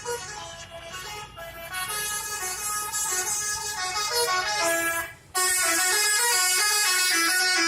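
Bus 'telolet' multi-tone musical air horn playing a tune of stepped horn notes. It grows louder, cuts out briefly about five seconds in, then sounds loud and steady.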